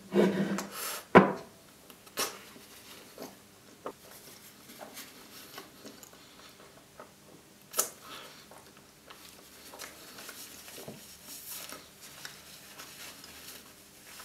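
Close-miked chewing of a large mouthful of white-chocolate-coated Maxibon ice cream sandwich: a few sharp crunchy clicks in the first two seconds and once near the middle, then quieter wet chewing.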